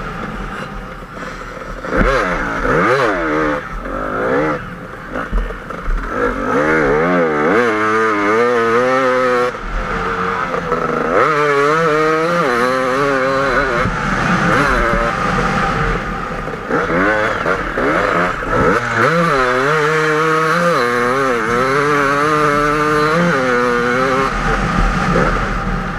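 KTM 250 EXC two-stroke enduro motorcycle engine revving hard, its pitch climbing and dropping again and again as the rider works the throttle and gears through deep sand.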